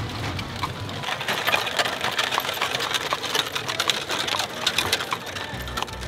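Horse-drawn buggy rolling along a paved road: the horse's hooves clip-clop amid a rapid, steady rattling clatter from the buggy's wheels and frame.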